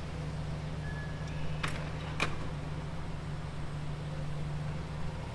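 Lamborghini Huracan STO's naturally aspirated V10 idling steadily, with two sharp clicks close together a little under two seconds in.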